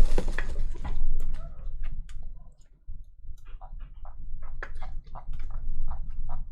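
A run of irregular light clicks and taps, more than a dozen, with a faint low hum underneath.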